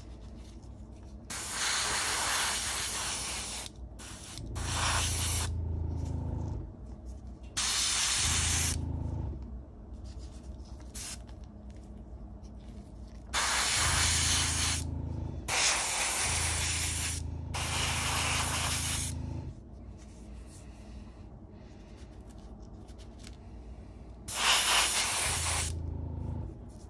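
Airbrush spraying paint in short bursts of hiss, about seven bursts of one to three seconds each, with a low hum beneath each burst.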